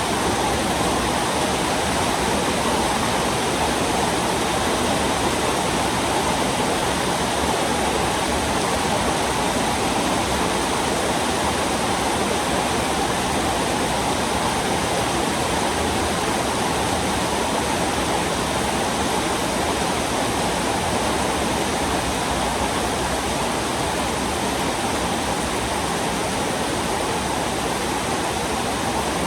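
Heavy rain falling, a loud, steady, even hiss without a break.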